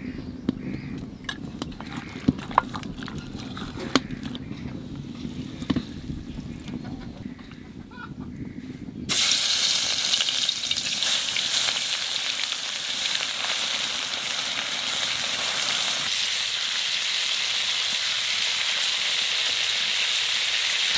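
Eel fish pieces being mixed by hand with salt and turmeric in a clay pot, with a few soft knocks. About nine seconds in, a loud, steady sizzle starts suddenly: the pieces frying in hot oil in a wok.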